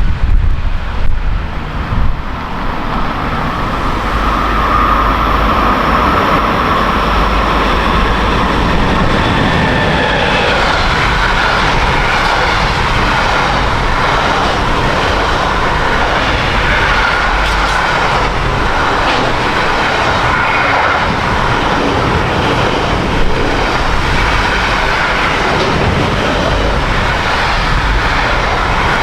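A train running past: a steady, loud rushing noise with a faint held whine in its first stretch. Wind buffets the microphone for the first couple of seconds.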